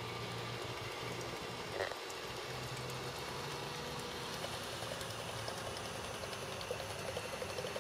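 Paddle wheels of a model paddle steamer churning the water, a steady splashing patter, with a faint low hum from the drive that fades about halfway through.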